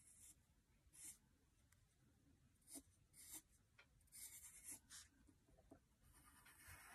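Faint scratching of a pencil drawing on paper: a handful of short, light strokes.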